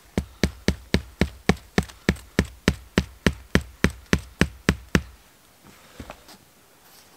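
A tent peg being hammered into frozen ground: about eighteen sharp, even knocks, roughly three a second, stopping about five seconds in.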